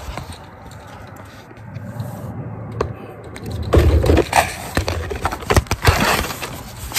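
Handling noise from a phone being propped up and repositioned: fingers and surfaces rubbing and scraping against it, with scattered knocks, louder from about four seconds in.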